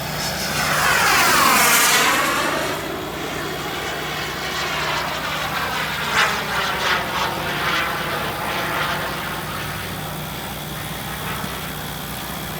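Radio-controlled model jet's turbine engine making a low fly-by. It swells loudest about a second and a half in, its whine falling in pitch as it goes past. It passes again more faintly a few seconds later.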